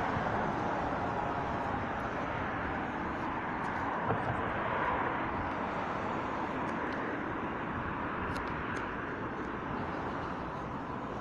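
Steady outdoor background noise, an even rumble and hiss with no single sound standing out.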